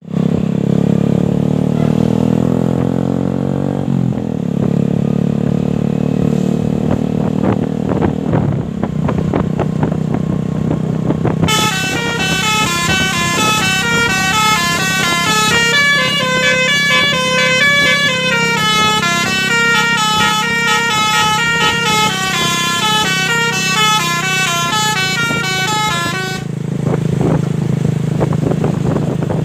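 A bus's 'telolet' musical air horn plays a fast stepping, snaking melody for about fifteen seconds over the bus's engine. The engine is heard alone before and after, its pitch rising in the first few seconds and then running steadily.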